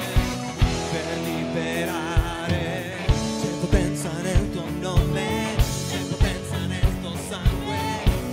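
Live worship band playing a rock song: drum kit keeping a steady beat with guitars and bass, and voices singing over it.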